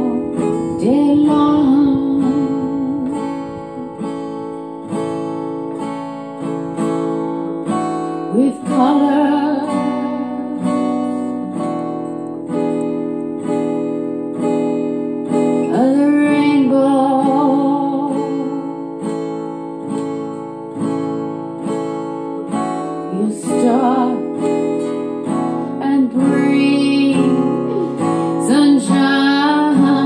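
Music: an acoustic guitar strummed in a slow song, with a gliding melody line coming and going over the chords.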